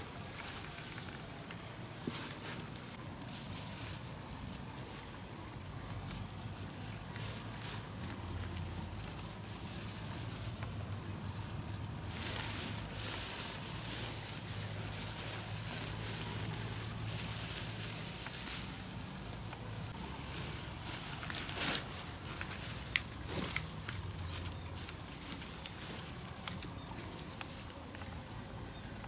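Dry straw and grass rustling as it is pulled up and stuffed into a sack, with scattered crackles and a louder stretch about twelve to fourteen seconds in. Under it runs a steady high drone of insects.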